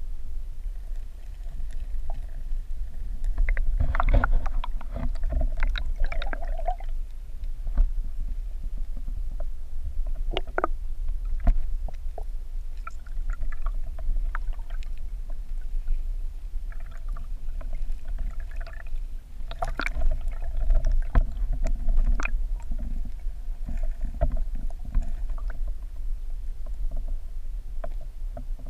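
Muffled underwater sound heard through a GoPro Hero 3's waterproof housing held in a creek: a steady low rumble of moving water, with scattered clicks and knocks and a few louder clusters of them.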